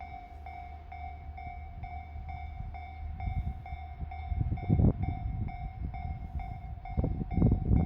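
Japanese level-crossing warning bell ringing steadily at about two and a half strikes a second, while a Series 1200 diesel railcar pulls away. The train's low rumble builds, with loud clattering about five seconds in and again near the end.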